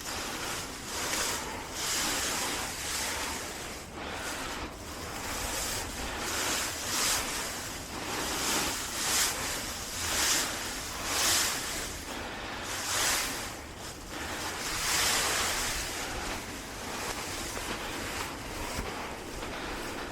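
Heavy breathing close to the microphone, breaths coming in swells of hiss every second or two from someone straining at manual garden work.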